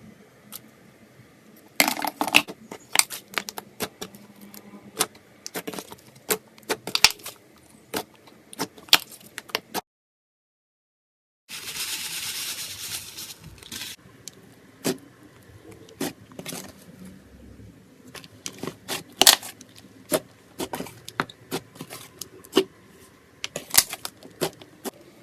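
Slime being handled: sharp, irregular clicks and crackles. A second or so of dead silence comes about ten seconds in, then a dense rush of crackling, then more scattered clicks.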